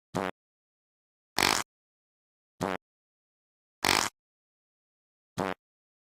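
Fart sound effects from the Android app Fart Sound Board, played as five short blasts about every second and a quarter. A shorter buzzy fart alternates with a louder, hissier one.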